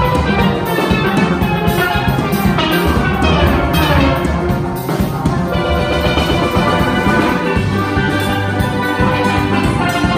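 Steelband playing a calypso: several steel pans, from high tenor pans to low bass pans, sounding many notes together, with a drum kit keeping the beat.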